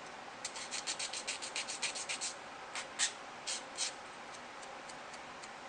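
Small hobby file rasping over a plastic model-kit part to clean up a nub mark: a quick run of short strokes, about seven or eight a second, then a few slower, firmer strokes, and then some faint ticks.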